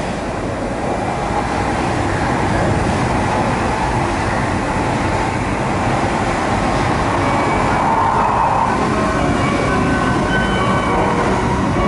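Cabin noise of an E7 series Shinkansen train running: a steady rumble of wheels on rail and rushing air, with a few faint high tones coming in near the end.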